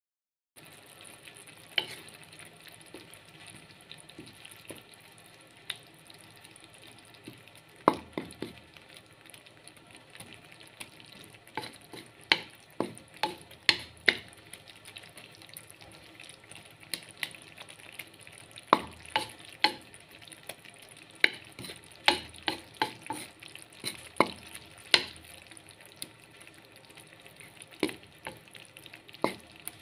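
Wooden spatula scraping and knocking against a metal pan while stirring chopped leafy greens frying in oil, over a low steady sizzle. The knocks come irregularly, often in quick clusters.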